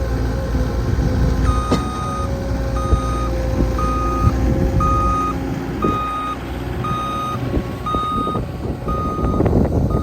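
Skid steer engine running under load while a machine's reversing alarm beeps, starting about a second and a half in and repeating a little faster than once a second. A few knocks and clanks of the machine working come near the end.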